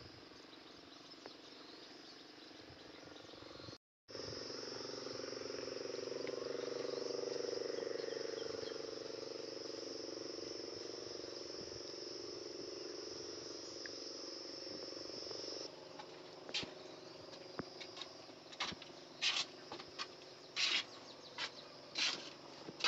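Insects trilling steadily at a high pitch. In the last several seconds this is broken by a series of short knocks or scrapes.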